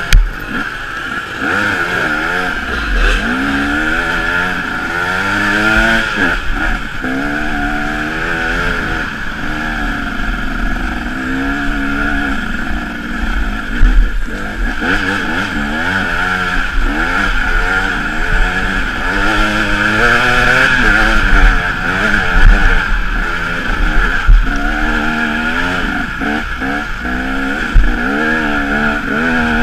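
KTM EXC enduro motorcycle engine revving up and dropping back over and over as the rider accelerates and shifts gears on a dirt trail, with a few sharp knocks along the way.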